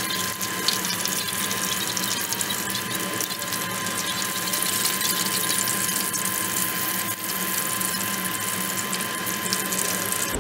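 Chicken wings deep-frying in hot oil in a wok: a dense, steady sizzle full of fine crackling. A thin, steady high tone sounds under it throughout.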